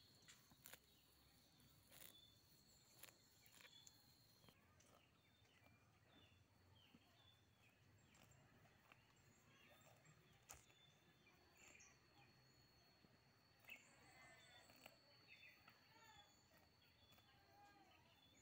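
Near silence: faint outdoor ambience with scattered bird chirps, a thin steady high insect whine that drops out for a while, and a few faint clicks.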